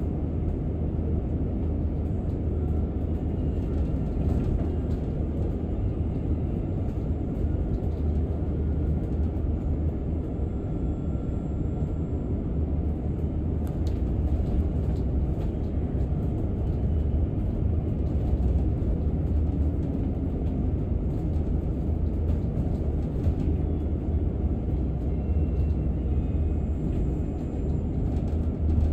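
A London bus in motion, heard from on board: a steady low rumble of engine and road noise that holds even throughout.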